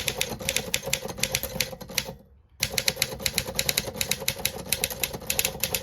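BlueBird Torpedo portable typewriter being typed on: a quick run of keystrokes striking the platen, a brief pause a little over two seconds in, then another quick run of keystrokes.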